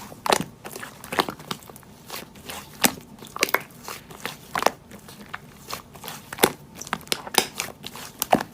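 Slime being squeezed and pressed by hand, making irregular sharp crackling pops and clicks.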